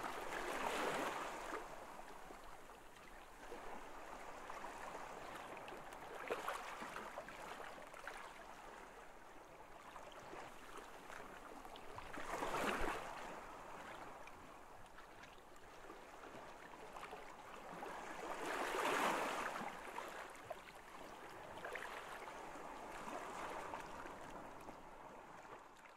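Water washing in waves: a soft rushing that swells and fades about every five to six seconds.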